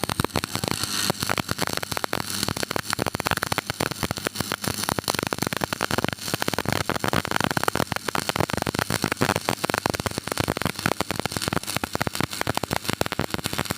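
Stick (arc) welding arc crackling: a dense, fast stream of snaps that starts abruptly as the arc is struck and runs on steadily.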